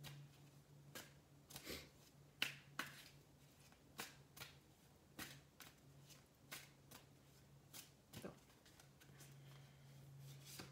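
A deck of oracle cards being shuffled overhand by hand: faint, irregular soft taps and slaps of cards, about two a second, over a low steady hum.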